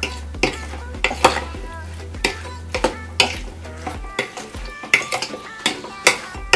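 A spoon tossing a dressed chopped salad in a bowl, knocking and scraping against the bowl in irregular clicks, about two a second.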